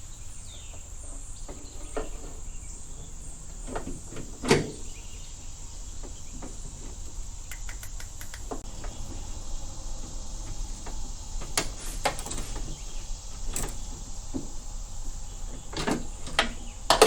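Scattered light clicks and knocks of hand tools and small metal parts inside a car door while a door handle is being fastened, with one louder knock about four and a half seconds in and several quick ones near the end. A steady high cricket drone runs underneath.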